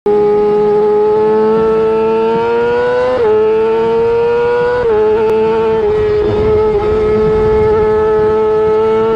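Yamaha R6 inline-four engine at high revs under full throttle, a high-pitched wail whose pitch climbs steadily and drops sharply at two upshifts, about three and five seconds in, before holding high.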